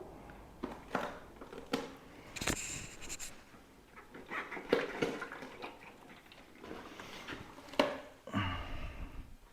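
Scattered knocks, clicks and scrapes of metal parts being handled as a motorcycle fuel tank is worked loose from the frame, with sharper knocks about two and a half seconds in and near the end.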